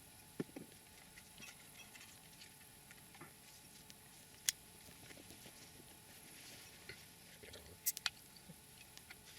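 Swedish fire log burning, with faint scattered crackles and a few sharp pops from the wood: one sharp pop about halfway through and a quick cluster near the end.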